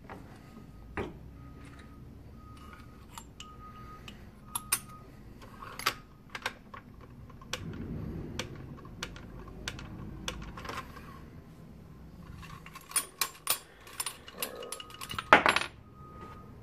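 Sharp metallic clicks and clacks from the steel bolt of a .300 Win Mag bolt-action rifle and the reloading gear being handled. They come singly at first, then in a quick cluster near the end, with the loudest clack just before the end.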